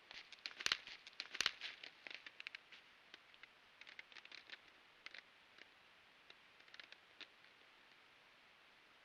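Crackling and rustling in dry forest litter, with two sharper snaps about a second in, then fainter scattered ticks.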